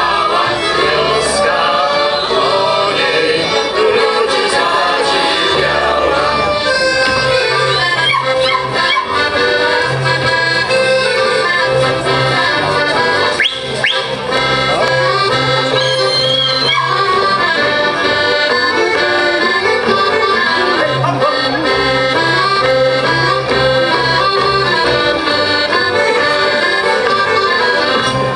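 Folk dance music from a small village band, led by an accordion with violins, over held low bass notes. There is a short break in the playing about halfway through.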